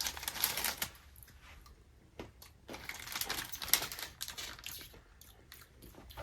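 Snack packaging being handled and opened: scattered crinkling and sharp clicks in short clusters, with a quieter stretch about a second in.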